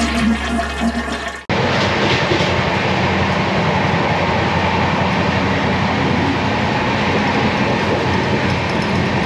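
The end of a short animated sting gives way, about a second and a half in, to a sudden cut into the steady running noise of an Indian Railways sleeper coach on the move. It is heard in the vestibule by the doors.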